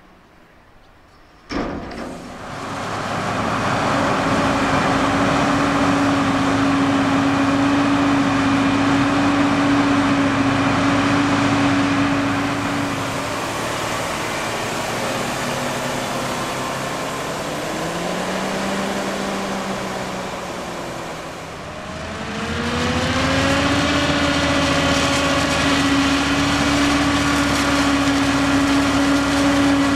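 Heavy harvest machinery engine running at high revs with a steady whine; it comes in suddenly about a second and a half in. About halfway through the pitch sags and wavers, then revs back up to the same steady whine.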